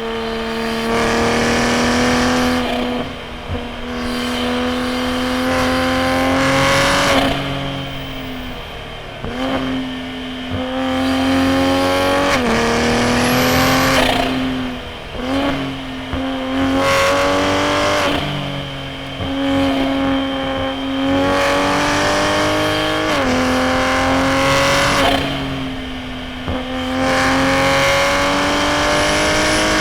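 Toyota A90 Supra's BMW B58 turbocharged inline-six through a straight-piped titanium single-exit exhaust, pulled hard through the gears. The engine note climbs, then breaks off and drops about every two to four seconds as the driver shifts or lifts, with a short high whistle at several of the breaks.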